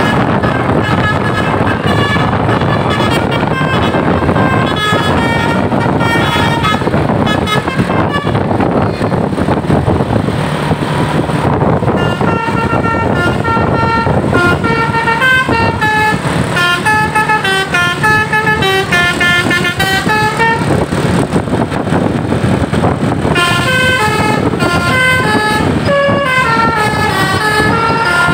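A bus's Basuri telolet horn playing quick melodies of pitched tones that step up and down, over the bus's engine and road noise. The tune breaks off briefly about a third of the way through.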